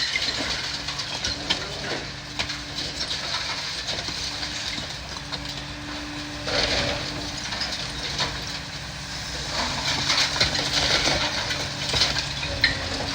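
A demolition excavator's diesel engine runs with a steady low hum while its attachment tears into the building, with crunching and scraping of breaking material. The crunching gets louder in bursts about six and a half seconds in, again around ten seconds, and near the end.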